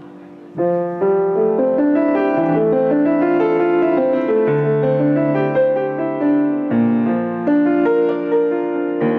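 Background piano music: after a fading held chord, a lively run of notes starts about half a second in and keeps a steady beat.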